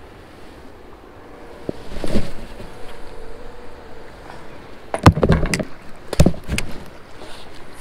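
Sharp knocks and rustles of a spinning rod and reel being handled close to the microphone, loudest in two clusters about five and six seconds in, over a steady background hiss.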